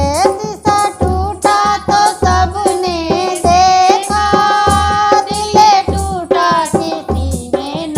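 A woman singing a Hindi Krishna bhajan in folk style, holding long bending notes, over a steady hand-drum rhythm.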